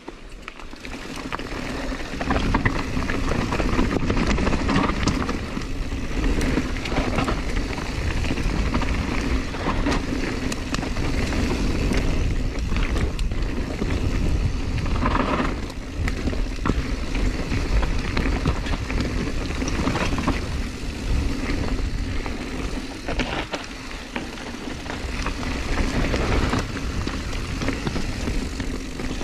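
Mountain bike descending a rough downhill trail at speed, building up over the first couple of seconds: steady wind rush on the microphone and tyre rumble, with scattered clacks and rattles from the bike over bumps.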